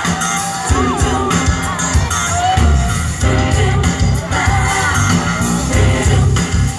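Live pop music heard from within a concert crowd: a woman's singing voice over the band, with a heavy beat and bass coming in about two and a half seconds in, and the crowd shouting along.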